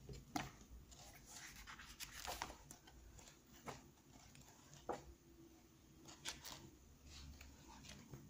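Faint rustles and soft taps of coloring book pages being turned by hand, a handful of brief paper sounds spread over several seconds.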